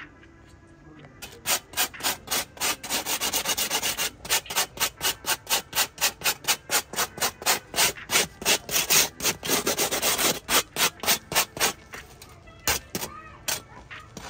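Rapid, rhythmic rubbing strokes on the dry, crisp crust of freshly baked tandoor flatbread, about four strokes a second, thinning out to a few scattered rubs near the end.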